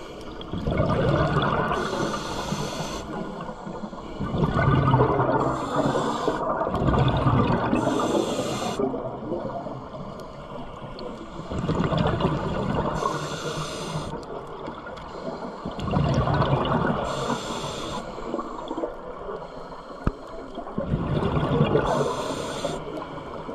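A scuba diver breathing through a regulator underwater: about five slow breaths, each a hissing draw through the regulator and a loud bubbling, gurgling exhale, roughly one every four to five seconds.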